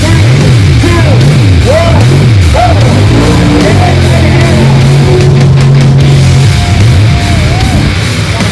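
Loud heavy metal music, with a low riff that swoops up and down over and over, then holds one note for a few seconds.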